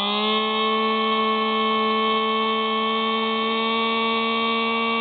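Electric motor and propeller of a Hubsan Spy Hawk RC plane whining close to its onboard camera. The motor speeds up slightly at the start, then holds a steady pitch.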